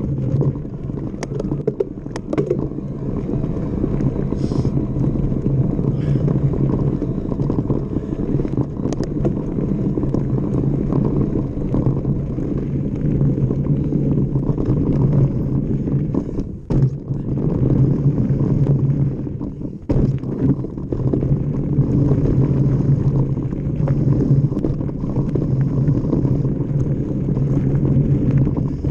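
Mountain bike riding fast down a dirt trail: steady rush of wind on the handlebar camera's microphone with tyre rumble over the dirt and stones, and a few sharp knocks and rattles from the bike near the start.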